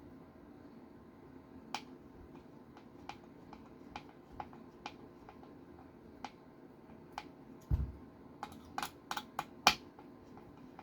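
Scattered light clicks and taps of small metal screws and a driver being handled while screwing a plate onto an RC car chassis, with a dull thump about eight seconds in and a quick run of louder clicks just after.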